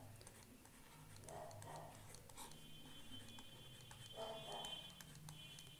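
Near silence: a faint low room hum with faint ticks and scratches of a stylus writing on a tablet, and a faint steady high whine from about halfway through.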